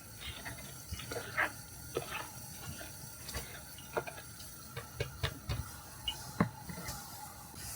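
Water dripping in irregular, separate drops, about one or two a second, over a low steady background.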